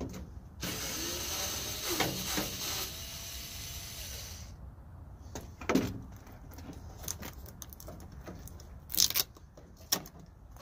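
Hand-tool work on the bolts of a truck's tailgate light with a 10mm wrench. A few seconds of steady, noisy rattling start about half a second in, followed by scattered sharp metal clicks and clinks from the tool and loosened parts.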